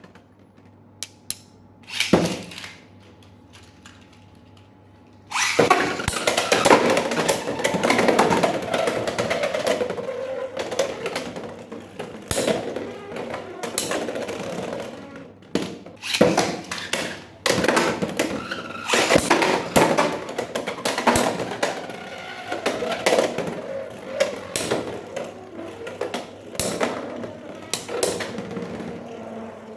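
A Beyblade X spinning top, the UX-11 Shark Scale, launched into a plastic stadium about five seconds in, then spinning and rattling across it with many sharp clicks and knocks.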